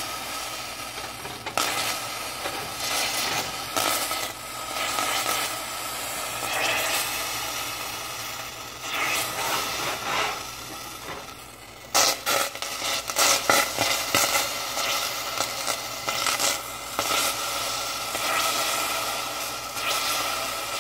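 A hot pan on the stove hissing steadily as liquid heats in it, with scrapes and clinks of utensils against it, busiest about twelve to fourteen seconds in.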